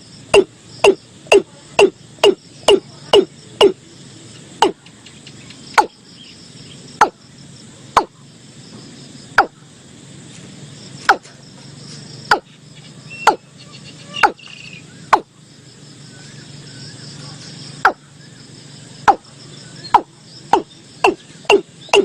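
Watercock calling: a series of short, hollow notes, each dropping in pitch. They come about two a second at first, slow to one every second or two in the middle, then quicken again near the end.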